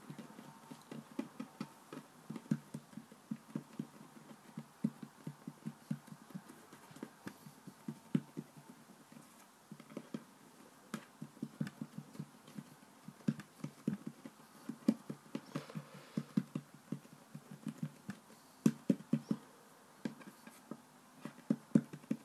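Fingertips patting and pressing play dough flat against a wooden tabletop: quick, uneven soft taps, several a second, with a couple of short pauses.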